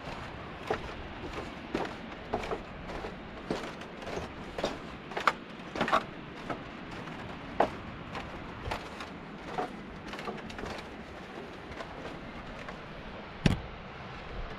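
Footsteps on a bamboo walkway: irregular hollow knocks and taps, about one to two a second, with one louder knock near the end, over a steady background noise.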